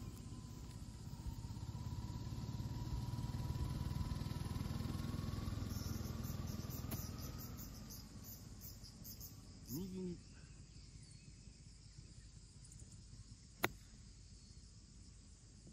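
A golf club strikes the ball once with a crisp click near the end as the golfer plays a short approach shot off the grass. Before it, a distant engine rumbles, swelling and then fading over the first eight seconds, while insects chirp steadily.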